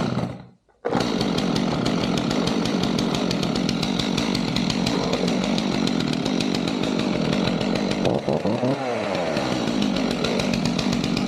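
Stihl MS 251 two-stroke chainsaw, pull-started with the choke off: it catches about a second in and then runs steadily, with a brief drop and rise in engine speed about eight seconds in.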